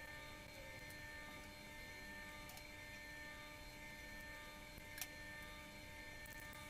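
Steady low electrical hum with a few faint clicks of scissors trimming fabric, and one sharp click about five seconds in.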